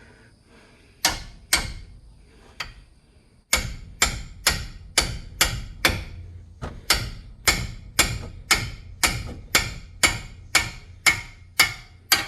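Hammer blows on metal, two single knocks about a second in and then a steady run of about two strikes a second, each ringing briefly.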